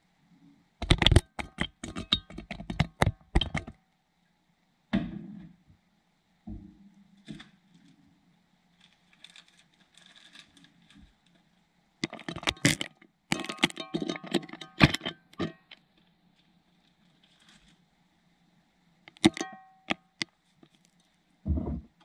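Kitchen handling sounds close to the microphone: several bursts of sharp clicks, clinks and knocks from a glass sauce jar and food being worked, over a faint steady hum.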